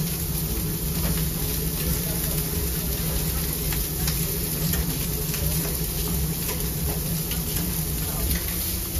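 Busy grill-stall ambience: a steady low hum and noise with faint background chatter and scattered light clicks and taps of utensils at the grill.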